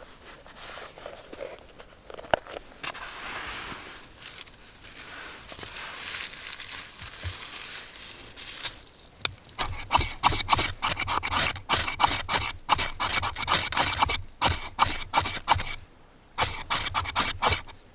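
A knife's spine scraped along a ferrocerium rod over a pile of wood shavings to light them. For the first nine seconds it is a soft, slow scraping, then comes a long run of quick, sharp rasping strikes, with a short pause near the end.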